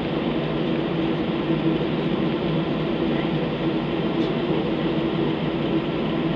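Steady jet airliner cabin noise while taxiing: an even rush of engine and air-conditioning noise with a low hum.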